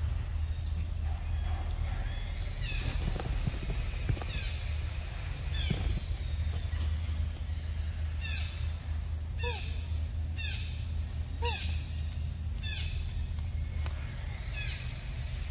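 Outdoor animal ambience: a series of short, falling animal calls, about one a second and thickest in the middle, over a steady high insect note and a steady low rumble.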